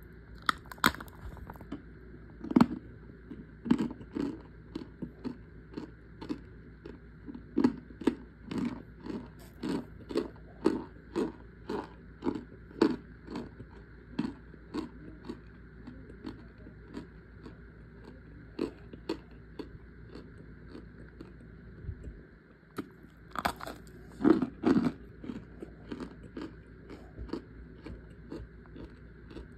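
Chunks of packed cornstarch being crushed by fingers: a run of soft, powdery crunches, about one or two a second, with a brief pause and then a few louder crunches.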